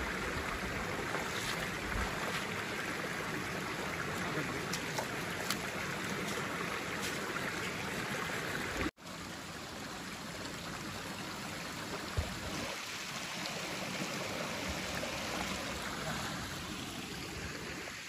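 Water flowing and trickling over rocks in a shallow stream fed by a small waterfall, a steady rush. It cuts out for an instant about halfway through and comes back a little quieter.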